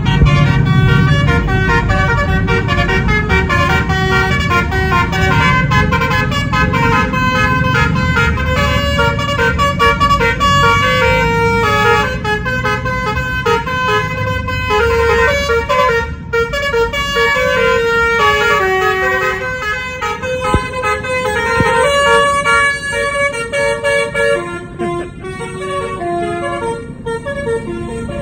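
Tour bus telolet horn, a set of air horns driven by an electronic tone module, playing a fast melody of stepped notes, with the bus's engine rumbling low underneath. The tune grows quieter in the last few seconds.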